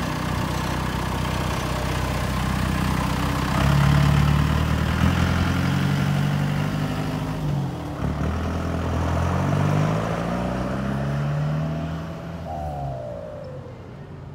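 4BT Cummins four-cylinder turbo diesel in a Jeep Wrangler pulling away and accelerating. The engine note climbs in pitch, drops at a gear change about halfway through, climbs again, and fades as the Jeep drives off.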